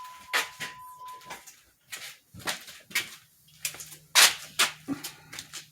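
A string of clicks and knocks from handling the Jeep's door and interior, the loudest about four seconds in. A steady high-pitched tone stops about a second in, and a low steady hum comes in about three seconds in.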